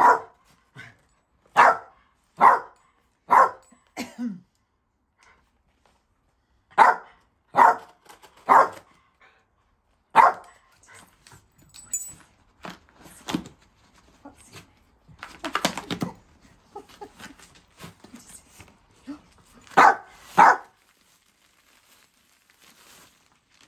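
Small dog barking sharply, about a dozen single barks in runs of three or four roughly a second apart, excited by a parcel being opened. Partway through, the barks pause and the cardboard and packaging rustle as they are handled, before two last barks near the end.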